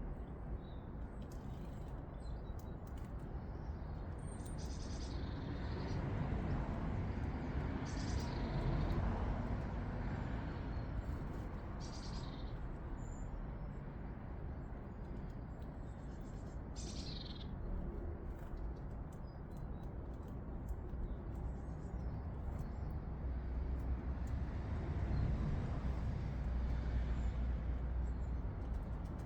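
Small garden birds giving short, high calls every few seconds, about four in the first twenty seconds, over a steady low outdoor rumble that swells and fades twice.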